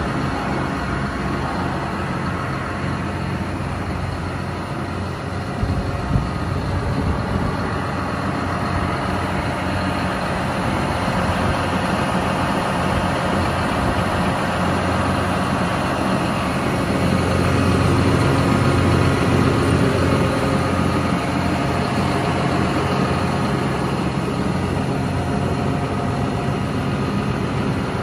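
John Deere 7215R tractor's six-cylinder diesel engine idling steadily, growing a little louder for a few seconds past the middle.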